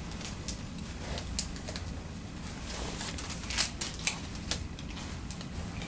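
Handling noise from putting a gauze dressing on an elbow: irregular light clicks and rustles from gloved hands, gauze and tape, the sharpest a little past halfway.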